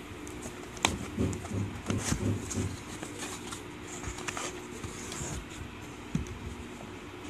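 Cardboard mailer box opened by hand and the boxed power bank handled: a sharp knock about a second in, then a cluster of cardboard scraping and tapping for about two seconds, with a few lighter clicks later. A steady low hum sits underneath.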